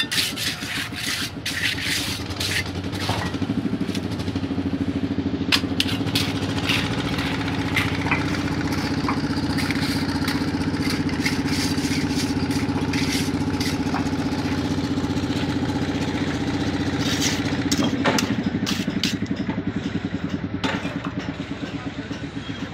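An engine runs steadily, a little louder through the middle stretch. Over it come scattered sharp clicks and scrapes of a hand trowel working wet concrete.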